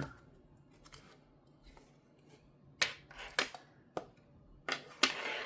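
Handling of unboxing packaging: a few sharp clicks, then a short rustle near the end.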